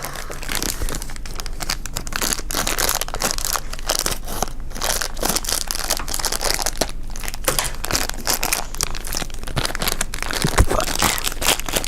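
Plastic wrapping of an L.O.L. Surprise doll package crinkling and tearing as it is pulled open by hand, a dense, continuous run of crackles.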